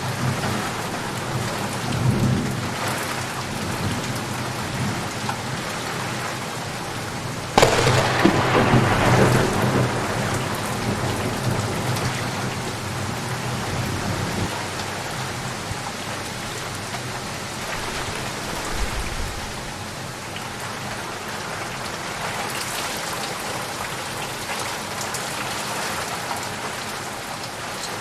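Steady heavy rain falling, with a sharp clap of thunder about a quarter of the way in that rumbles off over several seconds, and a fainter rumble of thunder near the start.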